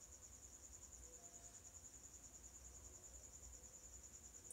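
Near silence, with a faint cricket chirping throughout in a steady, rapid, high-pitched pulsing trill.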